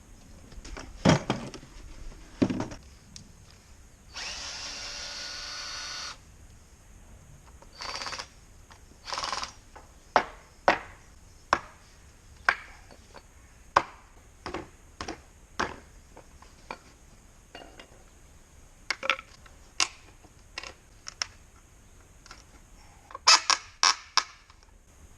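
A small motor whirs in short runs, one of about two seconds and two brief ones, among many sharp clicks and knocks.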